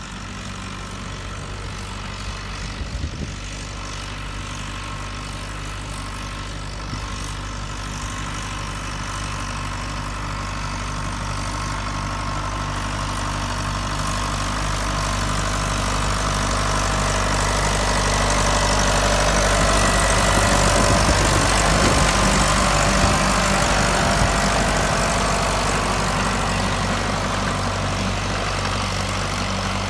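Tractor engine running steadily while it tows trailed gang mowers over grass, with the whir of the mower reels. It grows louder as the tractor comes closer, is loudest about two-thirds of the way through, then eases slightly.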